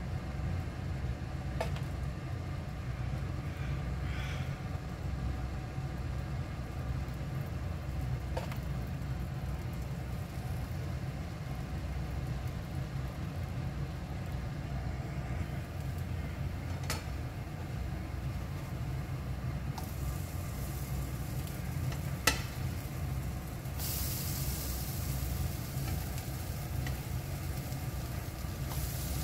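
Oat and banana pancake batter frying in a nonstick pan: a sizzle that grows louder in the last few seconds as the pancakes are turned, over a steady low hum. A few light clicks of the spoon and spatula against the pan, one sharper knock about two-thirds of the way through.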